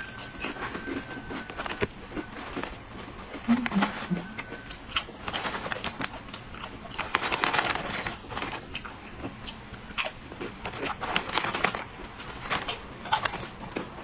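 Close crunching and chewing of a crisp snack, with irregular crackles and a longer rustling stretch about seven seconds in.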